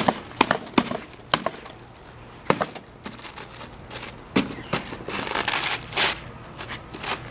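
A cup on a prize punch board being punched open and its contents handled: a run of sharp cracks and knocks, with a stretch of crinkling rustle about five seconds in.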